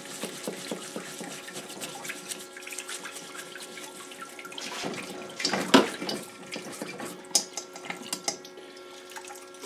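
Cleaning fluid splashing from a small battery-powered pump's hose onto a greasy lawn-mower engine block in a parts washer, with a brush scrubbing and scraping the metal. The pump hums steadily underneath, and there is a louder knock just under six seconds in.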